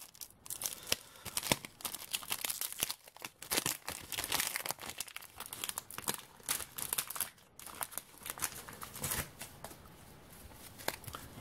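Foil trading-card pack wrapper crinkling and rustling as it is handled and the cards are pulled out, a run of irregular crackles that thin out near the end.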